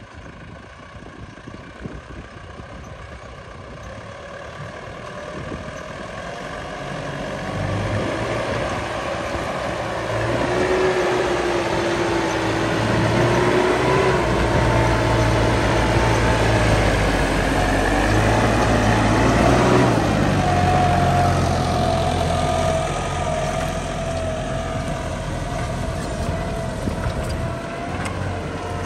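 LS tractor's diesel engine working under load as it pulls a mounted moldboard plough through the soil. It grows louder over the first ten seconds as the tractor comes close, is loudest in the middle with its note shifting, then runs steadier and a little quieter near the end.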